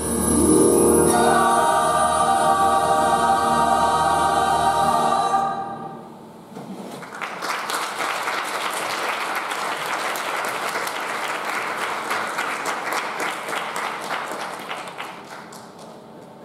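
A stage-musical cast singing together with accompaniment, holding a final chord that ends about five seconds in. Audience applause follows and fades near the end.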